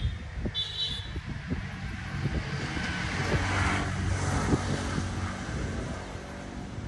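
A motor vehicle running on the road close by: a steady low engine hum, with engine and tyre noise swelling and then fading about halfway through as it passes.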